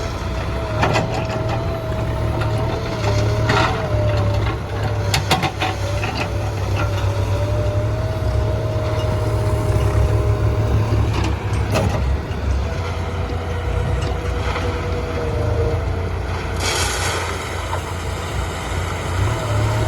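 JCB backhoe loader's diesel engine running steadily under load, with a whine that wavers in pitch over it. Scattered sharp clanks and knocks come from the working machine. A short hiss follows late on.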